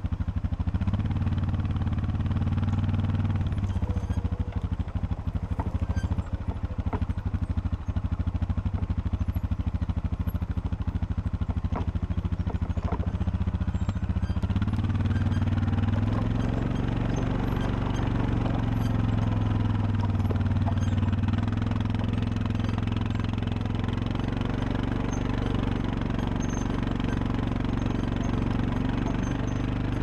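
ATV engine running under load as it tows three logs on a chain, its pitch rising briefly about a second in and again about halfway through, then holding higher.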